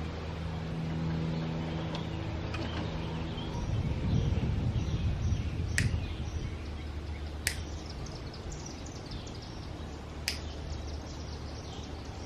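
Small metal clicks and taps from hand-tool work on the X-ray machine's electronics. Three sharper clicks come in the second half. Underneath is a steady low hum, a rough rumble for a couple of seconds near the middle, and faint bird chirps.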